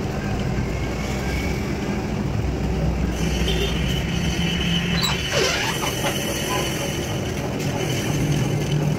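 Metal lathe running steadily, turning a motorcycle wheel's brake drum hub while a cutting tool skims the inside of the drum: an even machine hum with cutting noise over it.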